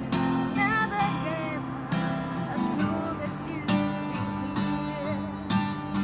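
Twelve-string acoustic guitar being strummed in a steady rhythm, with a woman singing a melody over it.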